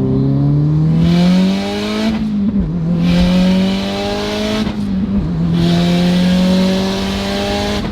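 Car engine at full throttle, revving up through three gears with quick upshifts about two seconds and five seconds in and again at the very end. The car has just been tuned and is pulling hard.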